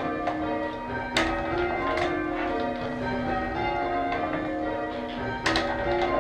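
Church tower bells being rung in changes, a quick even succession of overlapping strikes whose tones ring on into one another. Two strikes stand out louder, about a second in and near the end.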